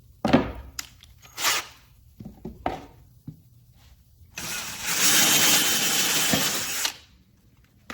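Power drill running for about two and a half seconds, boring a pre-drilled hole with a countersinking fascia bit into a dense TimberTech composite riser board, cutting a pocket for the screw head; a few knocks and handling clicks come before it.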